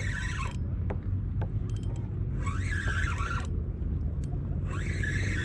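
Fishing reel being wound in three bursts about two seconds apart, bringing a fish up on a slow jig, over a steady low rumble.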